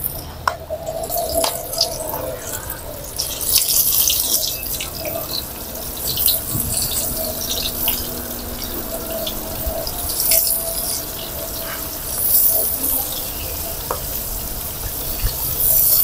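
Flour-battered prawns deep-frying in hot oil in a wok: a steady sizzle and crackle that surges louder several times as more battered pieces are dropped in.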